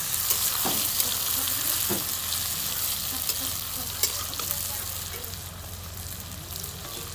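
Sliced onions and green tomatoes sizzling in hot oil in a metal wok while a metal spatula stirs and scrapes them, with a few sharp clanks of the spatula against the pan.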